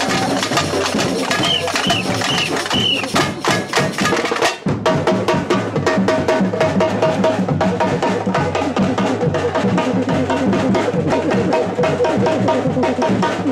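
Samba batucada percussion band drumming a dense, driving rhythm on bass drums and snares. There are four short high-pitched notes over the drums in the first few seconds. The rhythm drops out for a moment a little over four seconds in, then comes back in.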